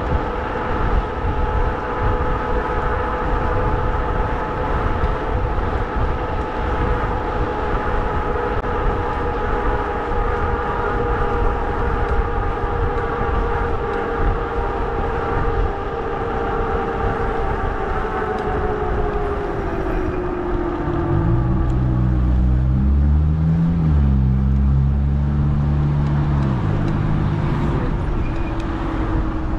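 Electric motor of a fat-tire e-bike whining steadily while riding, its pitch sliding down about two-thirds of the way in as the bike slows, over wind rush on the microphone. Soon after the slowdown a deep droning hum joins for several seconds, then fades.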